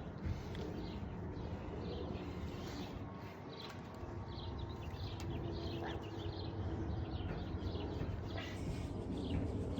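Small birds chirping over a steady low outdoor rumble.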